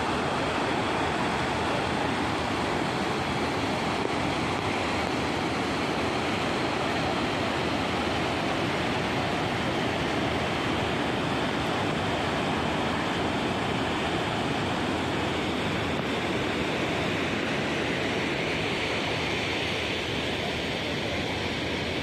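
Waterfall pouring down a rock cliff into its plunge pool: a steady, unbroken rush of falling water. The falls are running full a day after a typhoon's rain.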